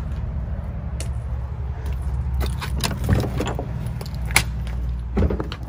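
Wind buffeting the microphone as a low rumble, with footsteps crunching over debris and sharp clicks and scrapes about halfway through and again near the end.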